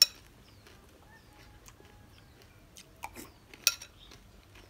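Metal spoon clinking against a glass bowl of milk and corn kernels as it stirs and scoops. There is a sharp clink at the start and a couple more about three seconds in.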